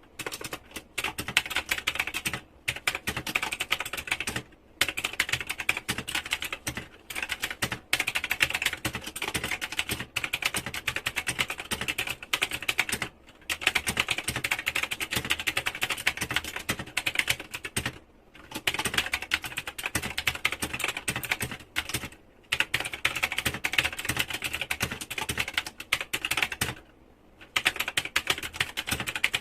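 Fast, continuous typing on a typewriter-style mechanical keyboard with round keycaps, the keys clacking in dense runs broken by a few brief pauses.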